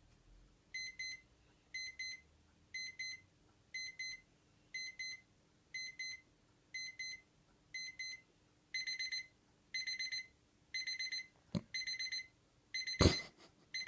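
Electronic alarm clock beeping in short bursts of high beeps about once a second, the bursts growing longer about nine seconds in. A sharp click comes a little later, and a loud knock near the end.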